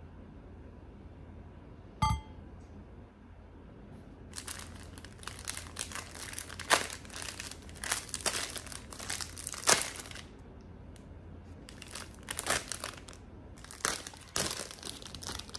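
Plastic wrapper of a packaged sandwich crinkling and tearing as it is pulled open by hand, in one long run starting about four seconds in, a short pause, then again near the end. A single sharp click with a brief ring about two seconds in.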